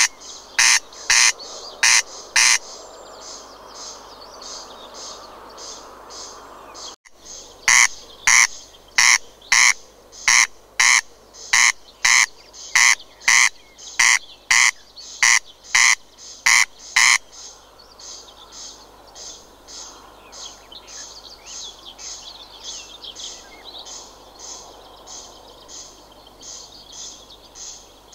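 Corncrake calling: loud rasping strokes repeated about twice a second, with a pause of several seconds near the start. From about 17 seconds in only fainter, thinner rasps keep the same rhythm.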